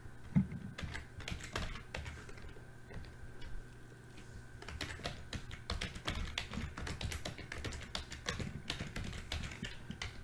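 Typing on a computer keyboard: quick, irregular key clicks in runs with short pauses, with one sharper knock about half a second in.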